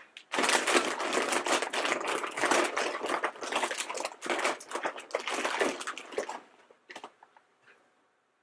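A hand rummaging through a bin of plastic and foil blind-bag packets, a dense crinkling rustle that stops about six seconds in, followed by a few light crinkles.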